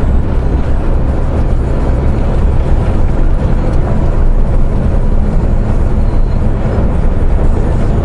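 MAN truck's diesel engine and road noise heard from inside the cab while driving: a steady low drone with no change in pitch.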